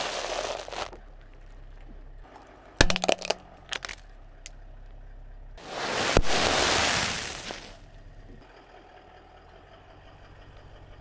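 A car tyre rolls over and crushes dry food on pavement. A crunching rustle at the start is followed by a quick cluster of sharp cracks around three seconds in. Then comes a longer crunching rustle of a plastic bag of puffed snacks being pressed flat, with one sharp crack just after six seconds.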